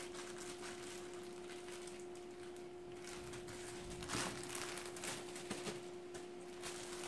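Faint rustling and crinkling of plastic zipper-lock freezer bags as they are handled and pressed flat, over a steady low hum. One slightly louder rustle comes about four seconds in.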